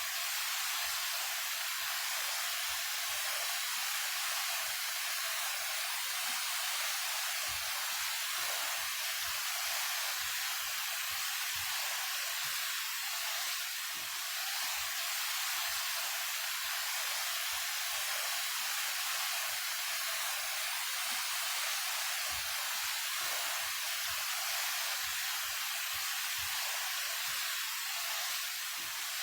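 A 28-metre waterfall running in a steady rush of falling water, heard as an even hiss with almost no deep rumble.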